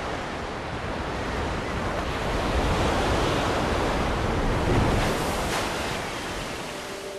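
Ocean surf: waves breaking and churning in a steady rush that swells in the middle and eases off near the end.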